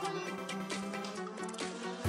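Background music: held tones over a regular beat.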